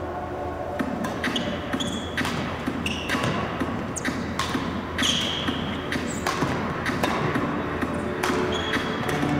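Badminton rally: racket strings cracking against the shuttlecock, among footsteps and short sneaker squeaks on the gym floor.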